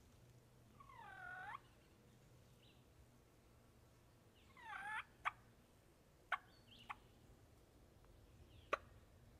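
Wild turkey calling: two gobbles, about a second in and again near the middle, then four or five short, sharp clucks spaced about a second apart.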